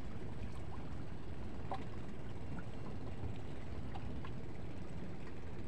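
Steady low rumble aboard a small fishing boat waiting by a mangrove bank, with a few faint short chirps or ticks.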